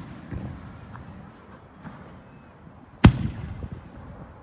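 An aerial firework shell bursts with one sharp, loud bang about three seconds in, followed by a rumbling echo. A weaker thump comes just after the start.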